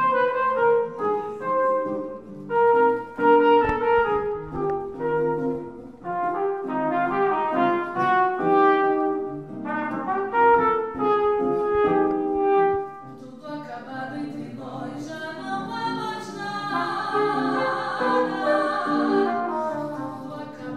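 Trumpet playing a melody over classical guitar accompaniment. About two-thirds through, the music turns to a denser passage with more wavering notes.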